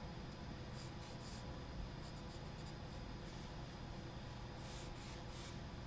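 Charcoal pencil scratching faintly across sketchbook paper as lines are drawn, with a few short strokes about a second in and again near the end.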